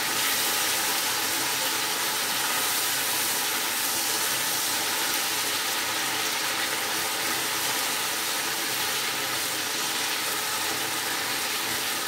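Lamb chops sizzling in a hot frying pan: a steady, even hiss of frying fat.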